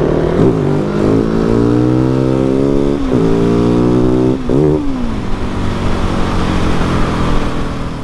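Husqvarna 701 Supermoto's single-cylinder engine accelerating hard through the gears, its pitch climbing and dropping sharply at upshifts about half a second, three seconds and four and a half seconds in, then running at a steadier note.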